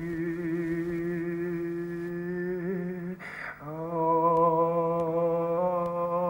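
A man's voice singing two long held notes on nearly the same low pitch, with a breath between them about three seconds in. The second note is louder and brighter.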